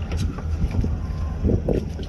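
Boat engine running with a steady low hum, with wind noise on the microphone.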